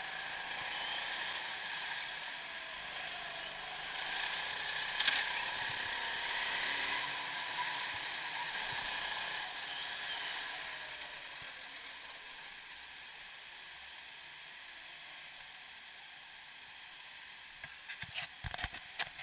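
Indoor go-kart running, heard from a camera mounted on the driver: a steady whirring hiss whose pitch rises and falls faintly with speed. It fades over the second half as the kart slows into the pit lane, and a few sharp knocks come near the end.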